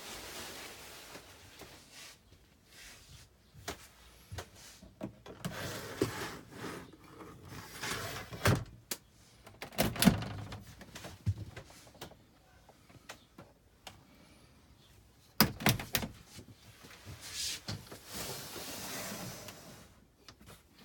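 Scattered knocks and thunks in a small enclosed space, with soft shuffling between them. The loudest come about halfway through and as a quick cluster about three-quarters of the way in.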